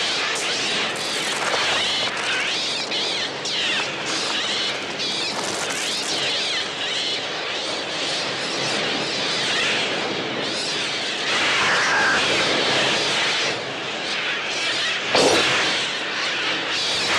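A dense mass of overlapping shrieking gull cries, the film's electronically produced bird sounds, with two sharp impacts near the end.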